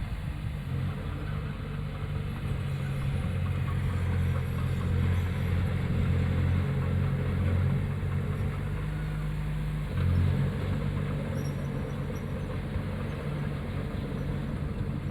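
Heavy diesel engine of earthmoving machinery running steadily, working harder for a few seconds in the middle, with a brief surge about ten seconds in.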